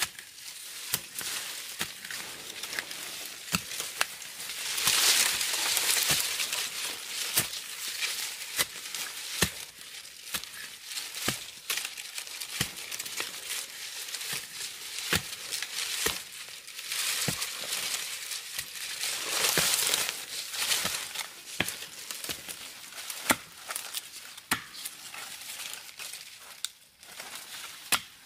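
A metal-bladed digging tool scraping and chopping into soil, roots and dry leaf litter to dig out a bamboo shoot: many sharp ticks and crunches, with longer bursts of scraping and rustling about five and twenty seconds in.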